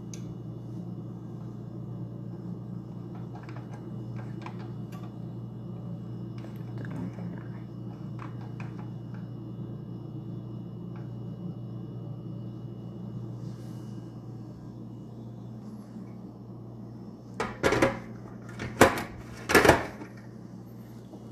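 A steady low hum with faint small clicks. Near the end come a few loud clattering knocks from the glass lid of an electric grill being set down over the grill plate.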